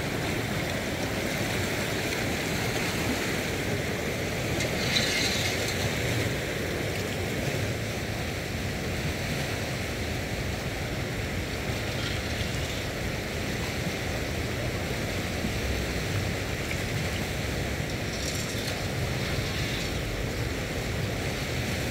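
Steady outdoor rushing noise, with brief brighter hissing swells about five seconds in and again near the end.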